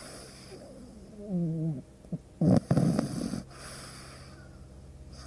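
A sleeping pug snoring. A short, wavering whistly wheeze comes about a second in, then a loud, rough, fluttering snore midway. Softer breathy breaths lie around them, and another snore starts at the very end.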